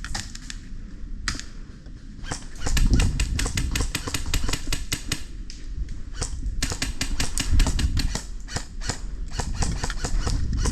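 Airsoft guns firing: sharp clicking shots in irregular strings of several a second, with a low rumble rising and fading twice.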